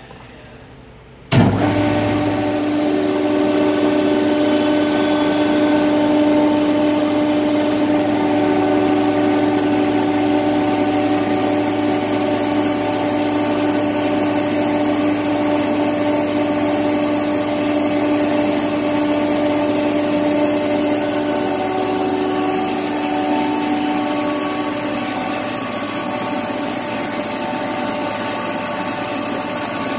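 A 1994 Ingersoll-Rand SSR EP15 15 hp rotary screw air compressor starting with a sudden surge about a second and a half in, then running steadily with a low hum and a few steady tones while it compresses air. Late on, one tone drops out and the sound eases slightly.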